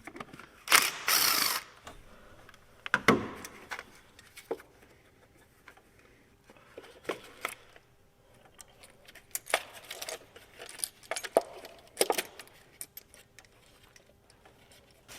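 Scattered metallic clinks, taps and rattles of hand tools and parts being handled during engine work. There is a short rustling noise about a second in and a heavier knock about three seconds in.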